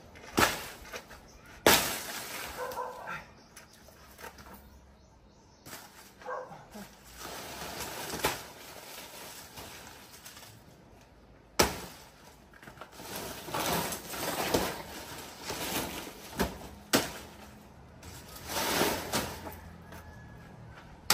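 Machete chopping into a felled banana plant's stalk: a handful of sharp hacks spaced several seconds apart, with rustling and crunching of leaves and stalk between them.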